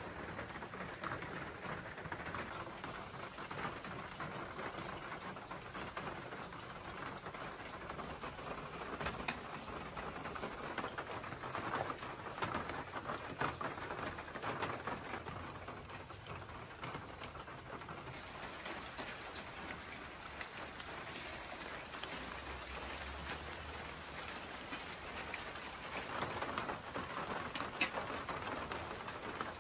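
Steady rain pattering on wet paving and gravel, with a few light clicks, one about nine seconds in and one near the end.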